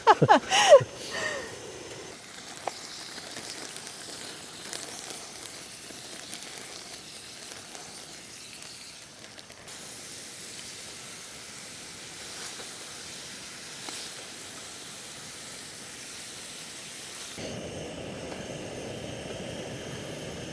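Steady hiss of a gas camping stove burner heating a pot of soup.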